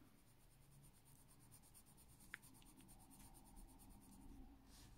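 Very faint scratching of a coloured pencil shading on paper, with one small click about two and a half seconds in.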